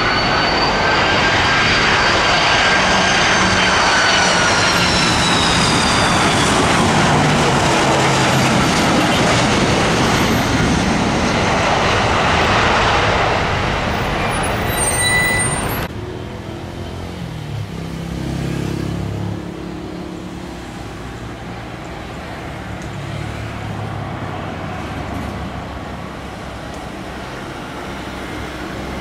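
Twin-engined jet airliner flying low, its engines loud with a whine that falls in pitch as it passes by. About halfway through, the sound cuts off sharply to quieter road traffic with truck engines.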